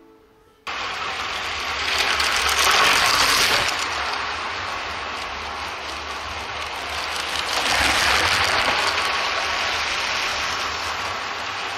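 Motorised LEGO City trains running on plastic LEGO track: a steady rattling clatter of plastic wheels and motor gearing that starts abruptly and swells twice.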